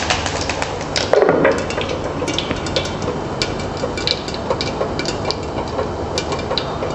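Coriander and cumin seeds sizzling and crackling in hot coconut oil in a clay pot, with scattered sharp ticks and a dull knock about a second in.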